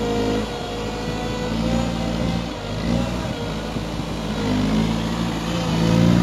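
Hidromek 62SS mini backhoe loader's diesel engine running under load, its revs rising and falling as the machine is worked.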